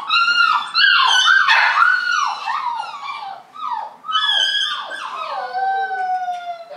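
A young puppy crying in a wire crate: a quick run of high yelping whines that rise and fall, about two a second, slowing near the end into a few long falling whines.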